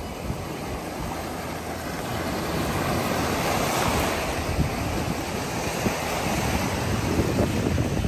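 Small waves breaking and washing up over a pebbly, rocky shore, with wind rumbling on the microphone. The surf swells louder about halfway through and again near the end.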